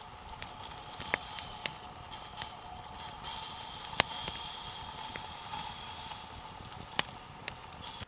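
Wood campfire burning under a metal pot on a grill: a steady hiss with scattered sharp crackles and pops, the loudest about four seconds in.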